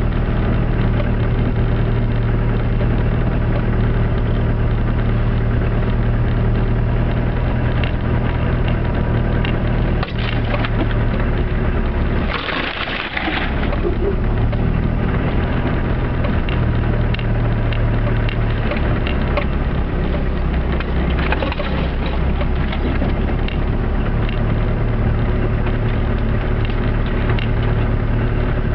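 Land Rover Discovery 300Tdi's 2.5-litre four-cylinder turbodiesel pulling steadily up a snowy track, heard from inside the cab, with continuous crackling and crunching over it. About twelve seconds in, the engine drone drops away for a second while a burst of hiss rises, then the engine comes back.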